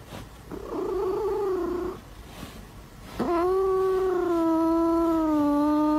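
A white fold-eared cat yowling with a small plastic object clamped in its teeth. There is a short yowl about half a second in, then a long, held yowl from about three seconds in.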